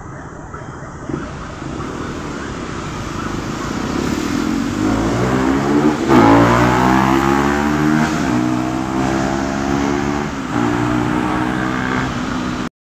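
Traffic of motorcycles and cars accelerating along a wide avenue, growing louder as a pack of engines approaches and passes, with several engine notes rising and falling in pitch. The sound cuts off suddenly near the end.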